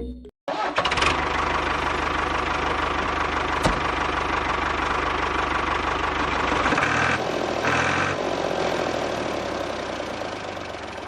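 The motor of a homemade mini tractor's borewell drilling rig running steadily, with a single sharp click a few seconds in. About seven seconds in its low hum changes, and two short grinding bursts follow.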